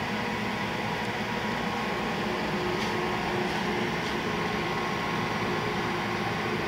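Steady machinery hum with several constant tones over a faint hiss, unchanging throughout.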